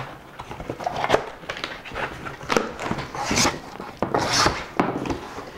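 Cardboard box being opened: a knife slitting the box, then the flaps pulled open, with scraping and rustling cardboard and two louder rasps about three and a half and four and a half seconds in.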